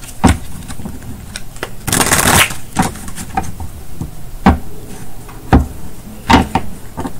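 Tarot deck being shuffled and handled: a dense rush of card riffling about two seconds in, with sharp card snaps and taps scattered through the rest.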